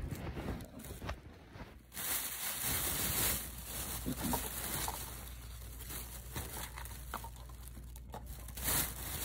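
Thin plastic carryout bag rustling and crinkling as it is opened and handled, louder for a stretch about two seconds in.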